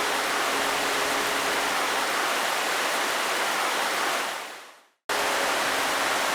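Steady rain hiss with faint held music notes under it at first. About four seconds in it fades out to a moment of silence, then cuts back in abruptly at full level, like an edit between two rain recordings.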